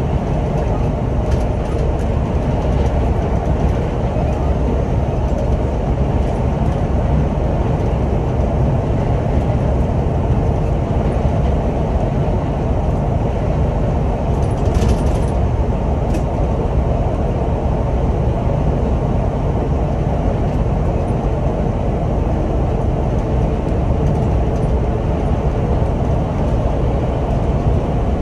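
Steady cabin noise of a Scania Omnilink city bus cruising at motorway speed: a low engine drone mixed with tyre and road noise. A brief sharp high-pitched sound comes about halfway through.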